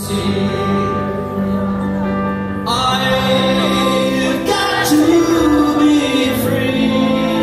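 A live band playing a slow, sustained opening; the music fills out about two and a half seconds in, with a gliding melody line soon after. Heard from the audience in a theatre hall.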